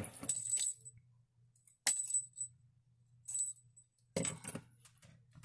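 Fabric scissors snipping thread ends off a freshly sewn patchwork seam: about four separate metallic snips with a brief high ring of the blades.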